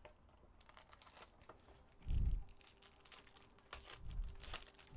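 Foil wrapper of a trading card pack crinkling and tearing as it is pulled open by hand, with scattered crackles throughout. Two dull thumps of handling come through, the louder about two seconds in and another about four seconds in.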